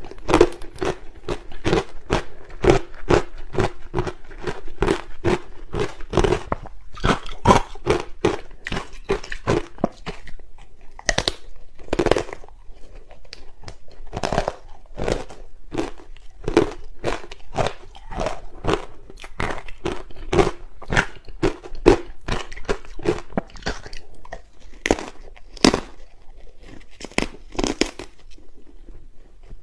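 A person biting and chewing thin slabs of matcha-powdered ice: a rapid, irregular series of sharp, crisp crunches, several a second, picked up close to the mouth by a clip-on microphone.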